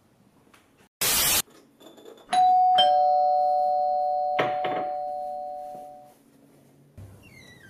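Two-tone "ding-dong" doorbell chime: a higher note struck, then a lower one half a second later, both ringing on and fading over about three seconds. It is preceded about a second in by a brief loud burst of hiss, and a faint falling squeal comes near the end.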